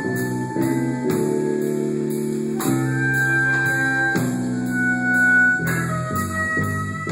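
Dance music led by keyboard or organ chords that change about every second, with a higher melodic line over them and a steady cymbal beat ticking about twice a second.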